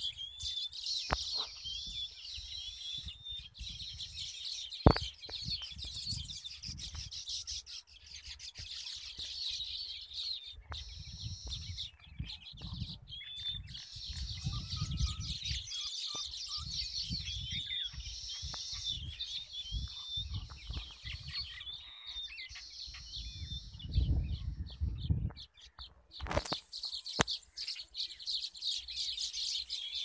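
A baya weaver colony chattering at its hanging woven nests: a dense chorus of rapid, high chirps and short sweeping notes. An uneven low rumble runs underneath, and there is a sharp click about five seconds in.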